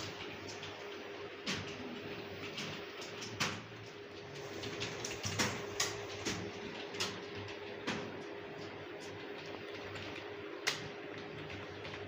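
Computer keyboard keys clicking in slow, irregular typing, a keystroke every half second to a second or so, over a steady hum.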